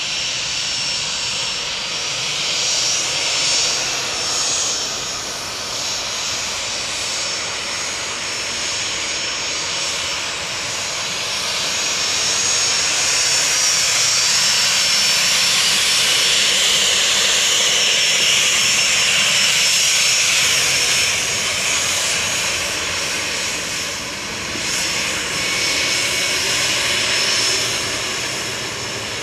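Cessna 510 Citation Mustang's twin Pratt & Whitney PW615F turbofan engines at taxi power: a steady high whine over a rushing hiss. It grows louder through the middle as the jet taxis close past, then eases off near the end.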